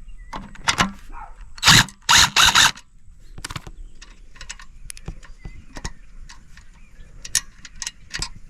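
Metal clinks and knocks of hand tools working on a bolt on a floor scrubber's metal frame. About two seconds in come three short, loud rattling bursts.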